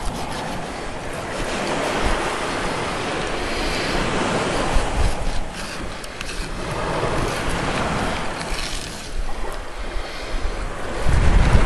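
Surf washing on the beach, the noise swelling and easing in slow waves, with wind buffeting the microphone and a heavier gust of rumble near the end.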